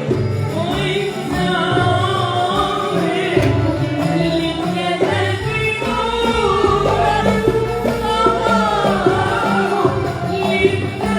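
Music with a lead voice singing over a steady instrumental accompaniment.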